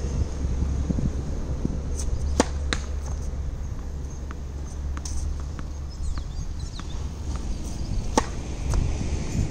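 Tennis balls being hit on a hard court: sharp pops of racket strings on the ball and balls knocking off the court, loudest about two and a half seconds in and again near the end, over a steady low wind rumble on the microphone.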